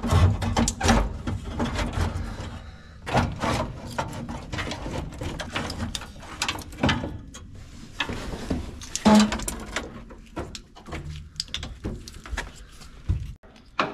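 Handling noise from a truck's dash wiring harness being worked loose by hand: irregular clicks, knocks and scraping of plastic plugs and wires. There is a louder knock about nine seconds in.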